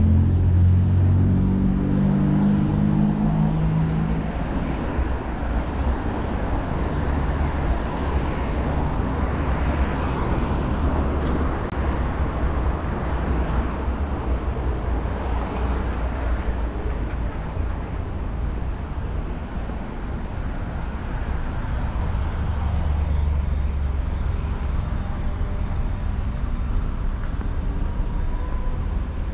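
Street traffic: cars passing on the road with a steady low rumble, an engine's hum in the first few seconds and tyre noise that swells and fades through the middle.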